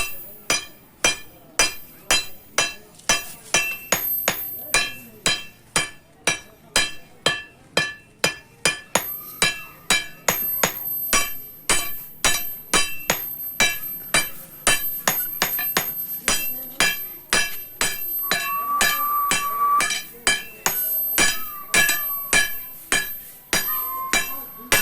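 Blacksmith's hammer striking steel on an anvil in a steady rhythm, about three blows a second, each blow with a bright metallic ring.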